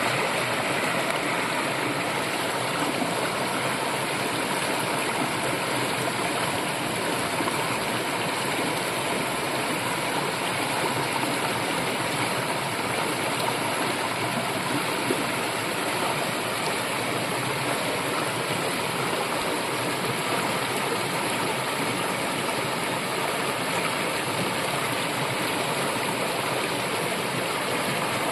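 Brook flowing, a steady, even rush of running water that does not change.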